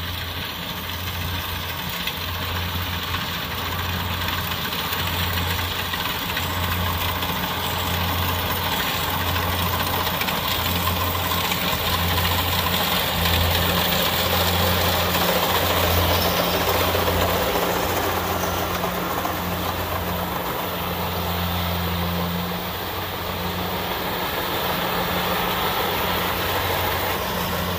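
Kubota DC-70 Plus rice combine harvester working in standing rice: a steady diesel engine hum under the broad mechanical din of the cutting and threshing gear. It grows louder around the middle as the machine comes close.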